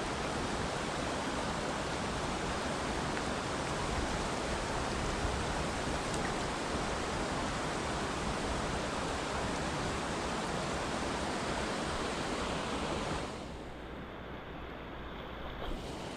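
Steady rush of river water flowing. About thirteen seconds in it turns duller and a little quieter.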